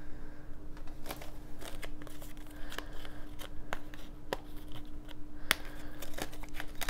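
Plastic blister packaging and card being handled, crinkling, with scattered light clicks and taps, over a faint steady hum.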